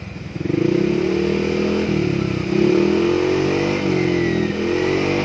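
Yamaha XMAX 250's single-cylinder four-stroke engine being revved through its stock muffler, which has been gutted for a racing sound. The revs climb about half a second in and are held between about 3,000 and 6,000 rpm, the pitch wavering up and down with the throttle.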